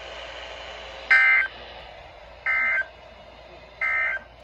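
Emergency Alert System end-of-message signal: three short, identical bursts of rapid two-pitch digital data tones, about a second and a third apart, marking the end of the alert.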